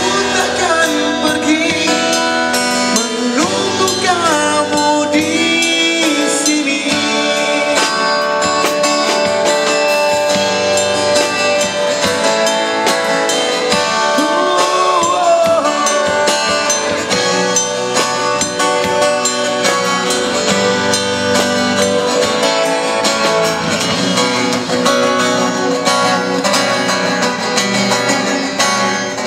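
Amplified acoustic-electric guitar played through a PA as an instrumental break, a busy picked lead line with bent and sliding notes over strummed chords, with wordless singing into the microphone in places.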